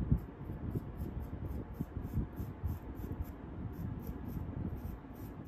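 A needle tool scratching and scraping into a firm clay vase, a run of short, irregular dry scrapes as the clay is carved away as dust.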